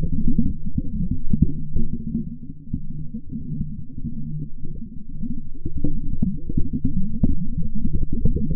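Deep, muffled rumbling soundtrack with a steady low hum and irregular crackling, everything above a low pitch cut away so it sounds like sound heard under water; it dips in loudness a few seconds in.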